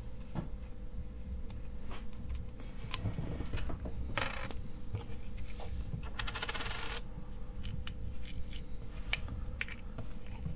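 Light clicks and taps of small parts being handled: a precision screwdriver, tiny screws and a plastic fidget-spinner case on a wooden bench, with a brief rattle about six seconds in.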